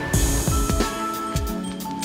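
Background music: an electronic track with a repeating low kick-drum beat, held synth notes and crisp high ticks, with a bright cymbal-like hiss just after the start.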